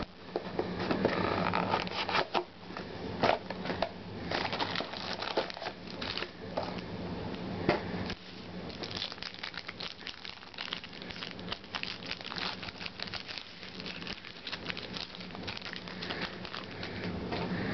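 Trading card packs from a box being handled and opened: wrappers crinkling and crackling, with scattered sharp clicks and rustles from the box and packs.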